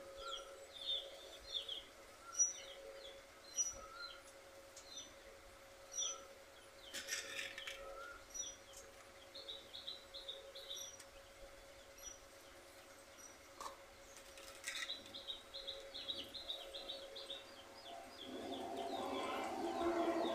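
Small birds chirping in quick repeated series of short high notes, over a faint steady hum, with a few brief clicks in the middle.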